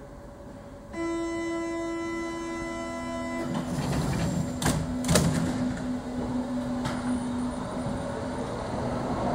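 Berlin U-Bahn F-type train at the platform. Its door-closing warning tone sounds for about two and a half seconds, then two thumps as the doors shut. The traction motors begin to hum and the train starts rolling, its running rumble growing louder toward the end.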